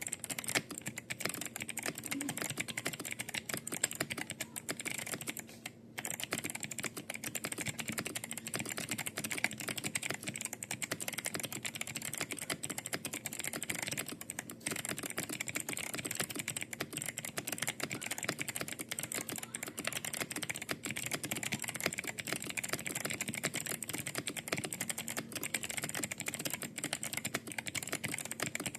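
Continuous fast typing on an Ajazz AK980 mechanical keyboard with Kailh Box Summer switches: a dense stream of key clicks, with short pauses about six and fourteen seconds in.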